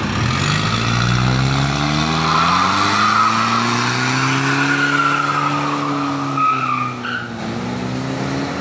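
Mitsubishi Pajero Sport Dakar turbo-diesel engine revving up slowly and holding, then easing off, with a turbo whistle rising and falling along with it. A short hiss comes near the end as the revs fall: the newly fitted blow-off valve venting.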